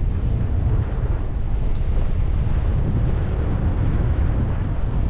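Strong wind buffeting the camera microphone, a steady low rumble.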